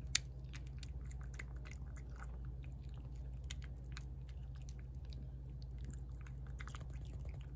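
A cat eating wet food from a plate, a steady run of quick, irregular smacking and chewing clicks as it eats fast. A low steady hum sits underneath.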